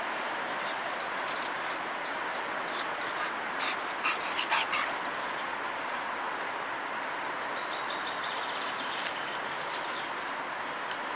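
A dog giving a few short, high yips and whimpers about four seconds in, over a steady background rush.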